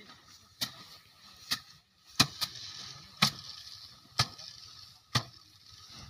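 Bundles of harvested rice stalks beaten by hand against a wooden threshing frame to knock the grain loose: about seven sharp whacks at uneven intervals, roughly one a second.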